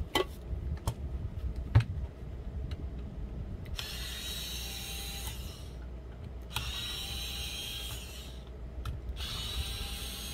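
A few sharp clicks of handling, then a small motor whirring in three spells of about two seconds each, with short pauses between.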